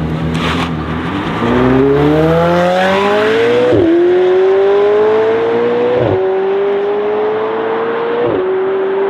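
McLaren 720S twin-turbo V8 accelerating hard from low speed. The engine note climbs steadily through the gears, with three quick upshifts, each a sudden drop in pitch, about four, six and eight seconds in.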